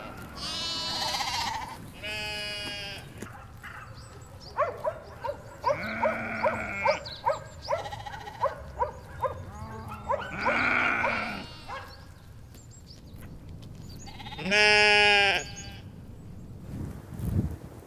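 A flock of sheep bleating on and off, about five long bleats with a loud one near the end. In the middle comes a quick run of short, sharp calls.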